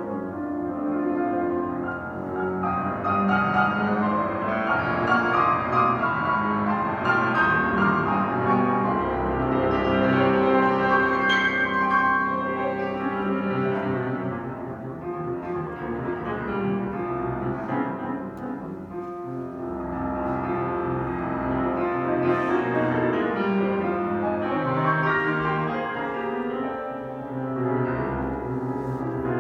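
Steinway grand piano played solo: a dense toccata of continuous, fast-moving notes. It eases a little in loudness about halfway through, then builds again.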